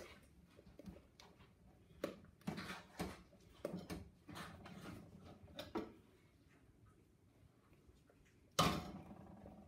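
Spatula stirring sticky melted marshmallow in a stainless steel saucepan, with scattered light scrapes and taps against the pot. A sudden sharp knock near the end is the loudest sound.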